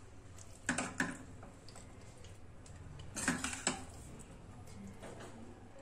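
Steel spoon clinking and scraping against a stainless-steel kadhai while cooked ridge gourd is scooped out into a small steel bowl, in two short clusters about a second and about three seconds in.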